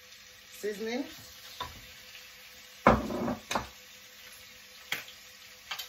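Spatula stirring and scraping in a wok of frying carrots, with one loud scrape and knock about three seconds in and a few light clicks later. Faint sizzling runs underneath.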